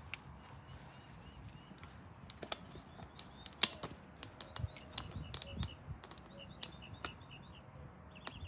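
Faint outdoor ambience: small birds chirping in short repeated notes, with scattered sharp clicks (the loudest about three and a half seconds in) over a low rumble.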